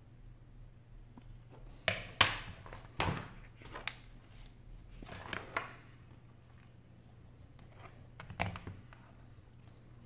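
Handling noises on a wooden desk: a few sharp knocks and rubbing sounds as iPhone 6 parts are set down and a black rubber work mat is moved. The loudest knocks come about two and three seconds in, with another near the end. A low steady hum runs underneath.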